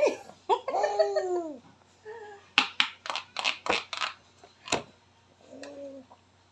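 A rooster crowing, long rising and falling calls, followed by a quick run of sharp knocks, about three a second, with one more knock a second later.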